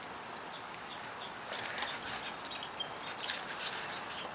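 Small birds chirping in the background, short high chirps from about a second and a half in, mixed with scattered sharp clicks.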